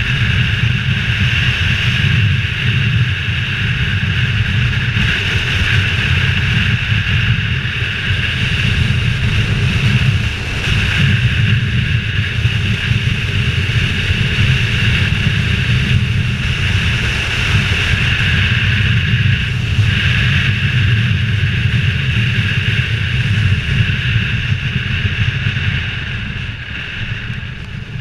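Motorcycle on the move at road speed, heard from a helmet-mounted camera: the engine runs steadily under wind rushing over the helmet, growing quieter near the end.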